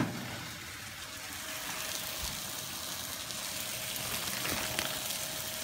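Steady sizzle of steaks frying in a pan, with a faint steady hum through it and a little plastic-bag rustling near the end.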